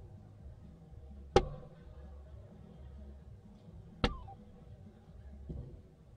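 Two soft-tip darts striking an electronic dartboard, each a sharp click, about a second and a half apart from the start and then again near four seconds in, over a low hall murmur.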